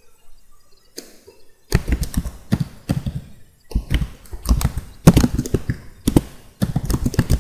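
Computer keyboard typing: rapid keystrokes in bursts with short pauses, starting about two seconds in.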